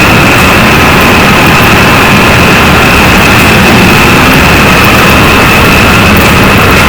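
Loud, steady machinery noise with a constant high whine running through it.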